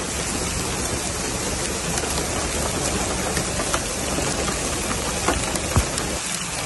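Heavy rain on a moving car, heard from inside: a steady hiss with a few sharper taps of drops striking the body and glass.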